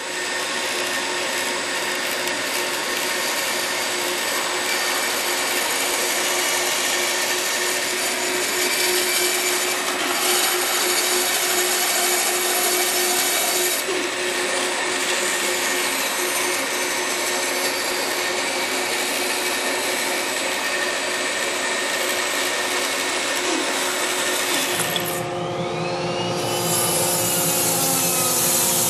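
Power tool running steadily as it shapes a cork goose-decoy body. About 25 seconds in, the sound changes to a hissier tool noise with a rising whine.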